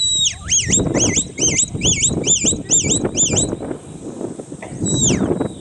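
Sheepdog handler's whistle commands to a working border collie: a quick run of about eight rising-and-falling whistles, then one long falling whistle near the end.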